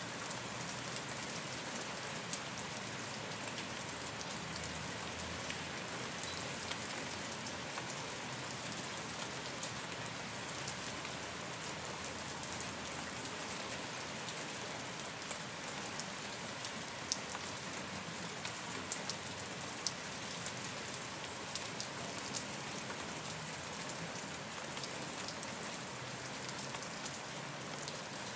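Steady rain falling: an even hiss with scattered sharper ticks of single drops striking close by.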